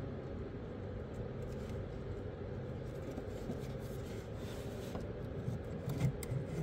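Faint handling noises and a few small knocks as a truck's fuel filter is worked on by hand, over a steady low hum.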